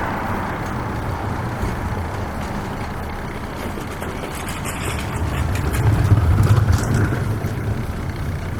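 City road traffic: engines and tyres of passing vehicles, with a louder vehicle rumbling past about six to seven seconds in.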